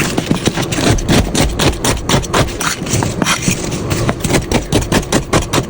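A knife making quick, repeated cuts through food on a board: a dense, uneven run of crisp clicks and crunches, several a second, without pause.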